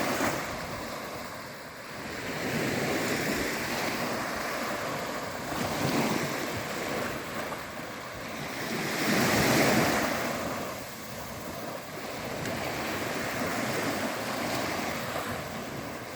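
Sea waves breaking and washing on the shore, swelling and ebbing every few seconds, with the largest surge a little past halfway.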